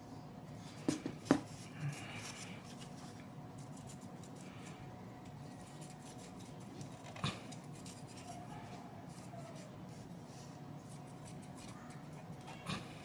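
Faint scratching of an alcohol-soaked cotton swab rubbed around a GTX 1050 Ti graphics card's fan, with a few sharp clicks: three close together about a second in, another about seven seconds in, and one near the end.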